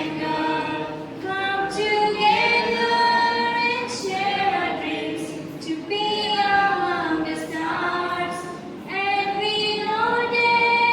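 A group of young students singing a song together without instruments, in long held phrases.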